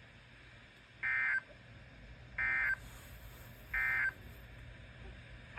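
Emergency Alert System end-of-message code: three short, identical bursts of digital data tone about a second and a half apart, marking the close of a weather radio alert.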